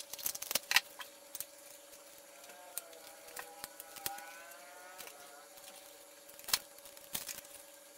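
Light clicks and taps of small plastic parts and the foam airframe being handled while a wiring connector is pushed into a recessed slot, quick clicks at the start and a sharper one a little past the middle, over a faint steady hum.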